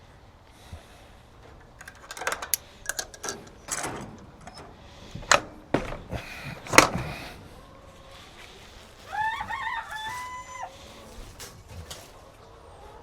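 A rooster crowing once, a cock-a-doodle-doo of about a second and a half that rises, holds and drops off at the end, about nine seconds in. Before it comes a quick run of sharp knocks and clatters.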